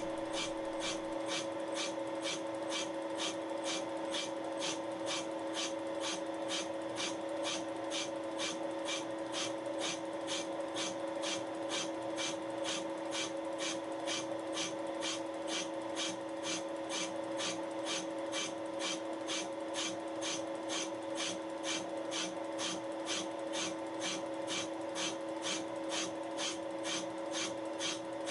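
Milling machine spindle turning a Wohlhaupter UPA 5 boring and facing head, its high-speed steel tool taking a first very light facing cut. The machine's drive gives a steady hum, and the cut adds a short scraping hiss about two to three times a second, once per turn of the head. The cut does not yet clean up the whole face.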